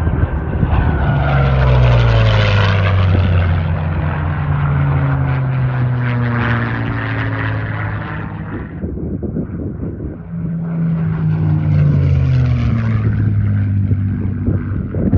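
P-51 Mustang fighters' V-12 piston engines and propellers in two flybys. Each pass builds to a loud drone and then drops steadily in pitch as the plane goes past; the second pass begins about ten seconds in.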